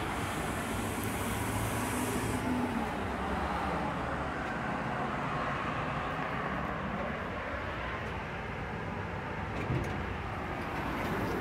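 Steady road-traffic noise, with a short click about ten seconds in.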